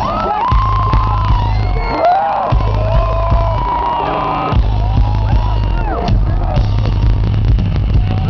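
Live rock band playing in a stadium, recorded from the audience and badly distorted. A heavy bass pulses in a beat under a lead line that slides up and down in pitch.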